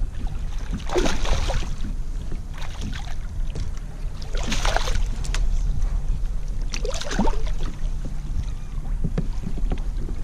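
Wind rumbling on the kayak's action-camera microphone, with three short splashing, rustling bursts about one, four and a half and seven seconds in as a just-landed redfish is handled at the kayak.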